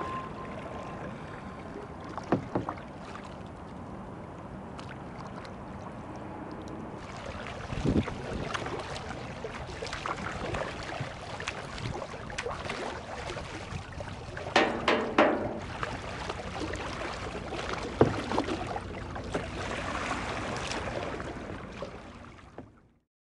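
Kayak paddling on open water: steady swish and splash of paddle strokes, with a few sharper splashes and knocks. The sound fades out near the end.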